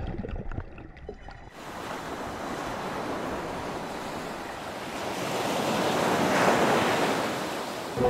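Churning white water rushing and hissing, rising to its loudest about six seconds in and then easing. It follows a second and a half of muffled low underwater rumble.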